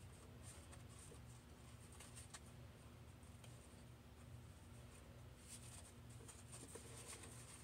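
Near silence: room tone with a steady low hum and a few faint light ticks.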